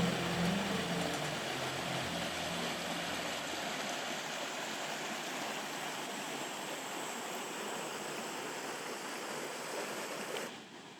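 Steady rushing of a gorge stream and its waterfalls, an even hiss of water that cuts off suddenly near the end. Background music fades out under it over the first few seconds.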